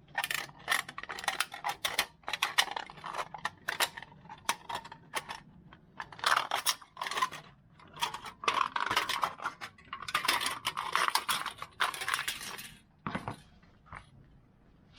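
Thin aluminum can sheet being handled, cut and wrapped: rapid irregular metallic clicks and crinkling scrapes, with longer rustling stretches in the second half.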